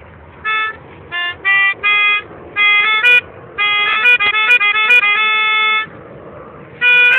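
A reedy wind instrument playing a simple tune in short held notes of changing pitch, in phrases with brief pauses, with a few sharp clicks among the notes.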